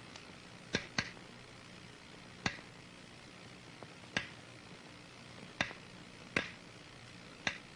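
Electrical breakdown sparks snapping through transformer oil between high-voltage electrodes, set off by streaming metal filings. About seven sharp snaps come at irregular intervals over a faint steady hum and hiss.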